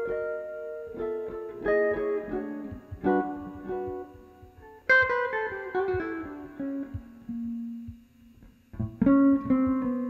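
Hollow-body archtop electric guitar playing plucked chords and single melody notes. About five seconds in comes a loud chord that rings and dies away, and near the end another chord is struck.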